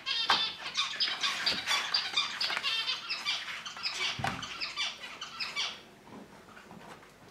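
Husky puppy whining in a rapid string of high-pitched squeaks and yelps for about six seconds, then falling quiet; a single low thump about four seconds in.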